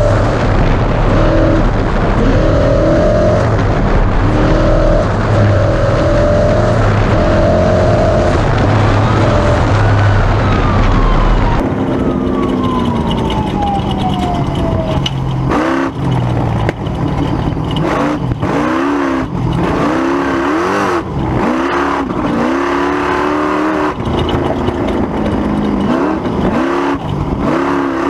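A Ford Ranger Class 1450 off-road race truck's engine running hard, its pitch stepping up and down. About twelve seconds in, the sound changes abruptly, and the revs swing up and down again and again as the throttle is blipped and lifted, with a falling whine just after the change.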